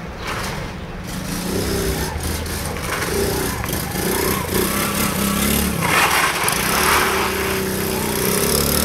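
ATV (quad bike) engine running and revving as it is ridden, its pitch rising and falling, with a louder rush of noise about six seconds in.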